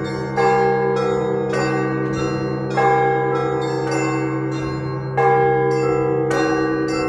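Orthodox church bells ringing in a pattern: a heavy stroke about every two and a half seconds, three times, with smaller bells struck in a steady quicker rhythm between them, all ringing on over a deep hum from the large bell.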